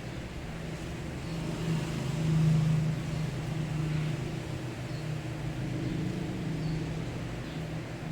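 A steady low mechanical hum that swells briefly about two seconds in, with faint light ticks about once a second.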